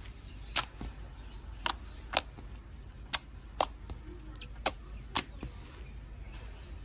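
Slime being played with by hand, giving about seven sharp, short popping clicks, irregularly spaced half a second to a second apart, as air pockets in it burst.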